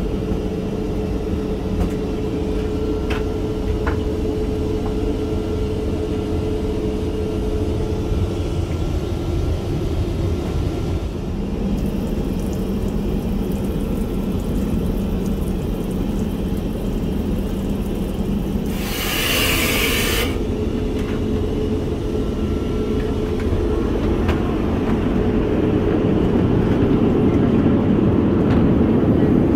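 Steady cabin noise of a Boeing 787-9 airliner in flight: a low rumble with a faint even hum. About two-thirds of the way through, a short loud rushing hiss lasts about a second and a half, then the rumble continues.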